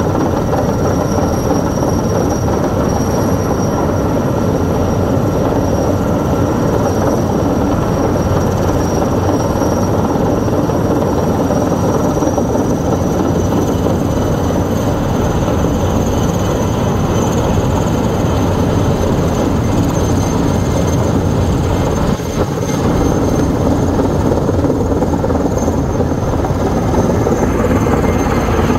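Sikorsky S-64 Skycrane heavy-lift helicopter hovering low while it takes on water. It makes a loud, steady rotor and twin-turbine noise with a thin, high, steady turbine whine above it.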